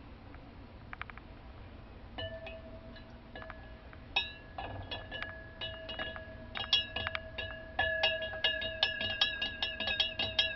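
Glass beaker clinking and ringing at the same fixed pitches each time a plastic spoon knocks it while stirring gold chloride solution as sodium metabisulfite is added to precipitate the gold. The clinks begin about two seconds in and come faster and louder from about six seconds on.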